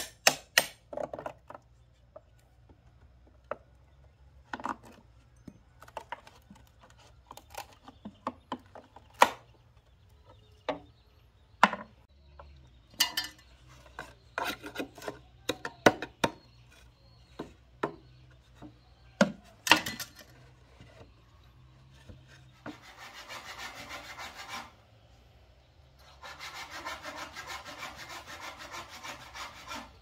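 Hand tools working green bamboo: irregular sharp knocks and chops of a machete and small tool on the bamboo, then two spells of quick, even rasping strokes, the second a few seconds long near the end.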